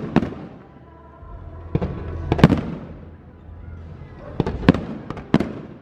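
Fireworks shells bursting: about six sharp bangs at uneven intervals, each trailing off in a rolling echo, the loudest about two and a half seconds in.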